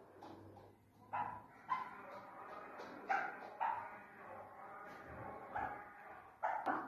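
Chukar partridge calling with short, harsh single notes at uneven intervals, breaking into a quick run of calls near the end.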